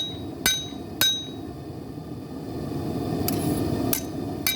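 Rounding hammer striking a hot knife blade on an anvil to straighten it: two pairs of sharp, ringing hammer blows, one pair about a second in and another near the end, with a fainter tap between. A steady low rush from the running forge underlies them.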